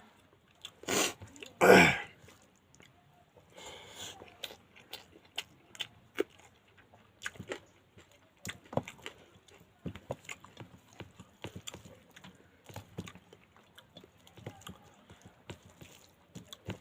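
Eating sounds of pangas fish curry: wet chewing and lip smacks heard as many short clicks, with two loud breathy bursts about one and two seconds in.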